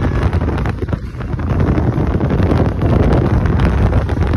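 Wind buffeting the microphone from a moving car, over a low, steady rumble of the car and its tyres on the road.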